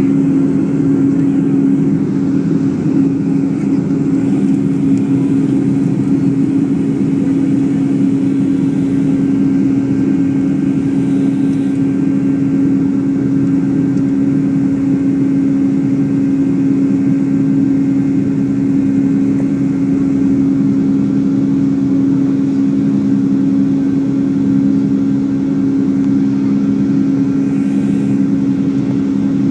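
Cabin noise of a Boeing 757-200 in its climb after takeoff: a steady engine and airflow rush with a steady low hum underneath.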